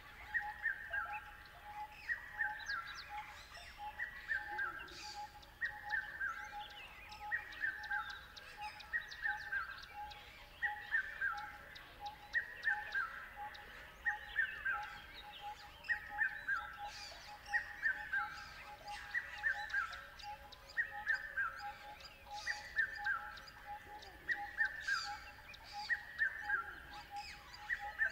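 Birds calling. One repeats a short falling phrase of several notes every second and a half to two seconds, over a steady run of quick, lower-pitched notes.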